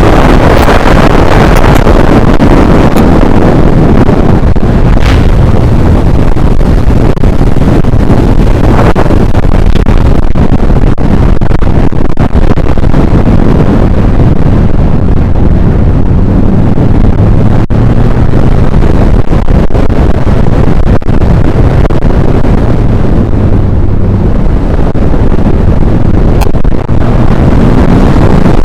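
Wind noise from a car being driven: a loud, steady rush with a low engine hum underneath.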